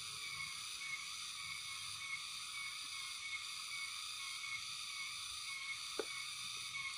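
Steady chorus of calling frogs: a short high note repeats about twice a second over a constant high hiss. A single sharp click comes about six seconds in.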